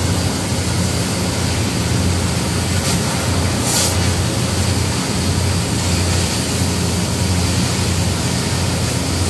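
Oxy-fuel cutting torch hissing steadily as it cuts through steel well casing, over a steady low machine hum. The hiss briefly sharpens a little before four seconds in.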